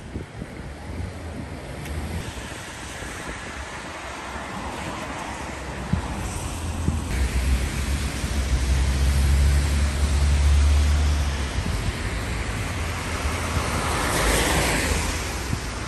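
Road traffic passing by: a vehicle's low engine rumble swells through the middle, then the tyre hiss of another vehicle rises and fades near the end.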